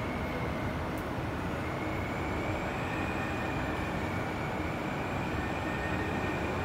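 Steady mechanical rumble and hiss in an underground metro station, with a thin high whine that rises slightly about two seconds in and then holds.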